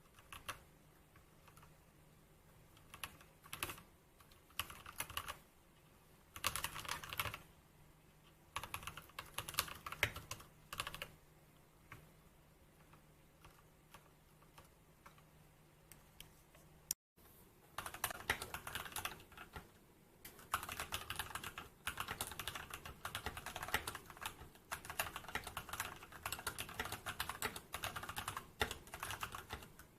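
Typing on an Anne Pro 2 mechanical keyboard with Gateron Red linear switches. Scattered bursts of keystrokes give way, after a brief gap about halfway through, to steady fast typing.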